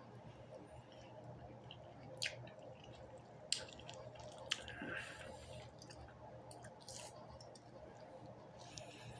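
A person chewing a mouthful of orange with lips closed: soft wet squishing, with three sharp wet mouth clicks about two, three and a half and four and a half seconds in.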